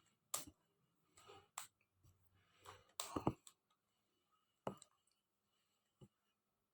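Quiet clicks and clacks of a plastic 3x3 Rubik's cube's layers being turned by hand, coming irregularly, about six in all.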